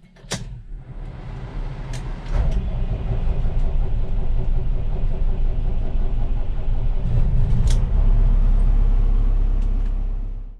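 Sampo Rosenlew combine harvester running with a steady low rumble that grows louder about two seconds in, with a few light clicks on top; it cuts off suddenly at the end.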